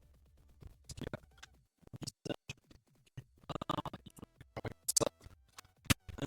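A rapid, irregular series of sharp clicks, knocks and short scratching noises, as of hard objects being handled, with the loudest knocks near the end.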